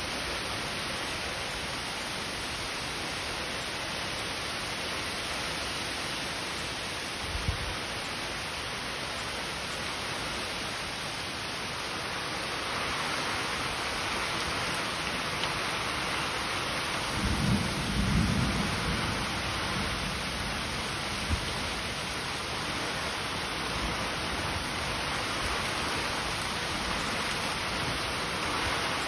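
Heavy rain pouring steadily in a thunderstorm, getting heavier about halfway through. Brief low rumbles of thunder come through it, the longest a little past the middle.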